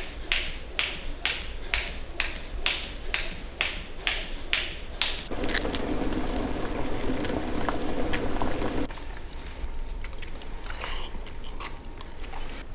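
A skipping rope slapping the floor in a steady rhythm, about two strikes a second, for about five seconds, then a few seconds of low rustling. Near the end, someone eating instant ramen from a small pot: chewing, slurping and light clicks of chopsticks against the pot.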